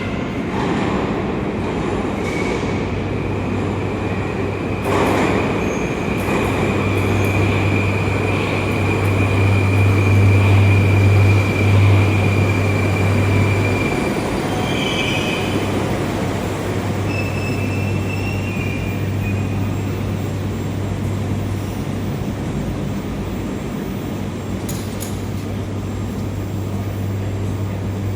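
Moscow metro train running through a station: a steady low rumble and hum, with a steady high whine from about two seconds in that stops around fourteen seconds, loudest around ten to twelve seconds in.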